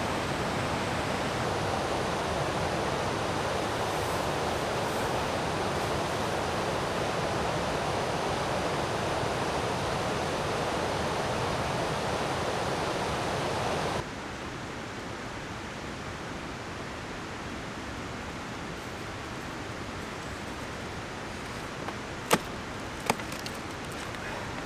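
Steady rush of river water from rapids. About fourteen seconds in it switches abruptly to a quieter rush, and near the end two sharp knocks come under a second apart.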